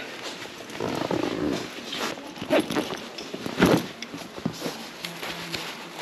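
Rustling of a fabric riding jacket, backpack and gloves handled close to the microphone, with scattered light clicks and knocks.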